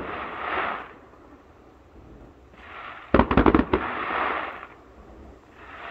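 Distant fireworks: a quick cluster of several bangs about three seconds in, with a rushing, crackling hiss just before and after it. The tail of an earlier hiss fades at the start.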